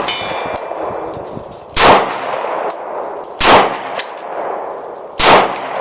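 Three 9 mm Glock 19 pistol shots, about a second and a half to two seconds apart, each trailing off in echo.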